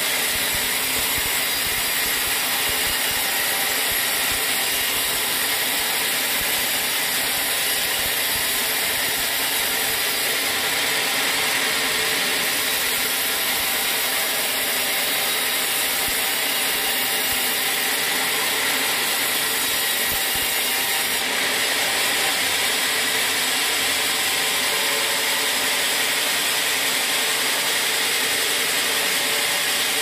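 Band sawmill running steadily, its blade sawing through trembesi (rain tree) wood.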